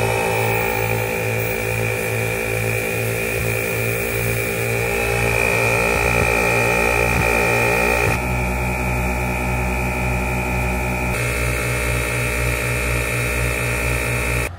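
Northern Ridge twin 12-volt onboard air compressor running steadily under load, filling four tires at once, with a fast pulsing chug and a steady high whine. Its tone shifts abruptly twice in the second half.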